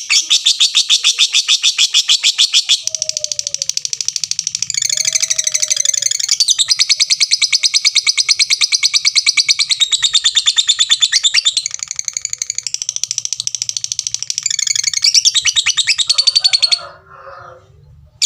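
Lovebird in a long 'ngekek' chatter: a fast, unbroken run of sharp, high, clicking notes many times a second, kept up for about seventeen seconds, then cut off abruptly and followed by a few softer, lower calls.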